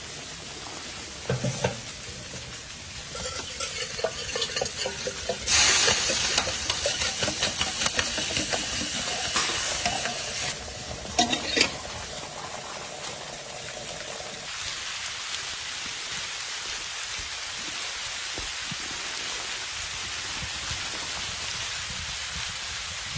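Food sizzling in a hot pan, with a few clinks. A loud burst of sizzling starts a few seconds in and lasts about five seconds, then settles into a steadier, quieter hiss.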